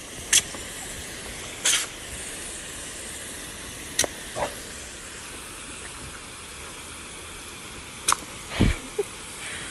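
Garden hose spray nozzle hissing steadily as it sprays water at a dog, with a handful of short, sharp sounds spread across it.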